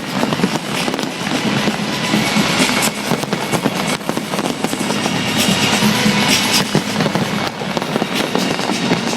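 A fireworks display in full barrage: many shells bursting and crackling one over another without a pause, with music playing underneath.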